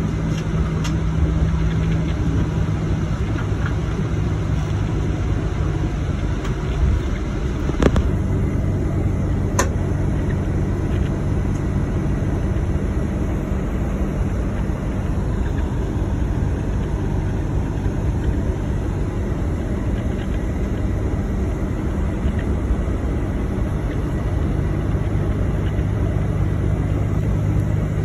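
Tour motor coach heard from inside the cabin: a steady engine and road rumble with a low drone. Two sharp knocks stand out, about eight seconds in and again a second and a half later.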